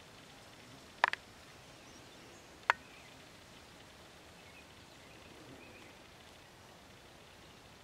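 Faint steady outdoor background, broken by a quick triple click about a second in and a single sharp click a little under three seconds in.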